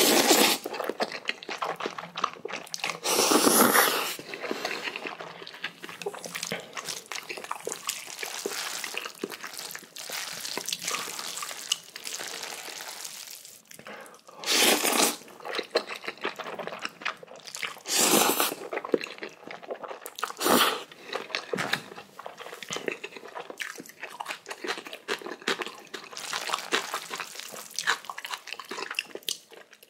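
Close-up eating sounds of Chapagetti black bean noodles with spicy kimchi: wet chewing and crunching of kimchi, with several louder, second-long bursts of noodle slurping.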